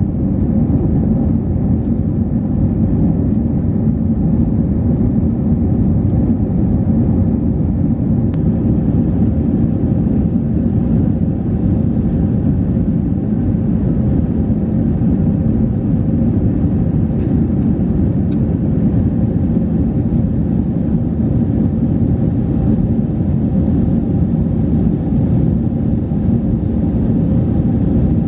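Steady rumble of an Airbus A321's engines and airflow heard inside the passenger cabin, with a faint steady hum and a couple of small ticks.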